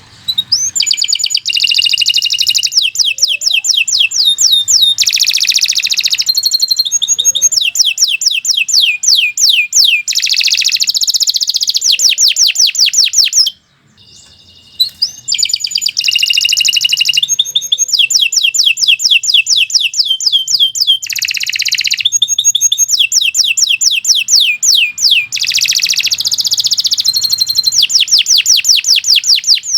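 Domestic canary singing a long song of fast repeated trills alternating with buzzy rolls, with a brief pause about 13 seconds in.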